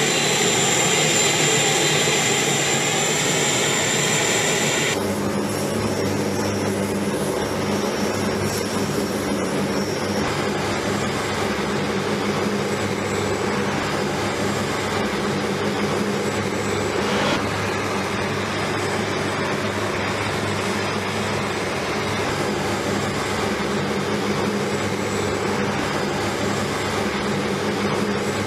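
Lockheed KC-130J Super Hercules turboprop engines running on the ground: a steady propeller drone with a high turbine whine. About five seconds in it changes abruptly to a lower, even propeller hum that holds steady.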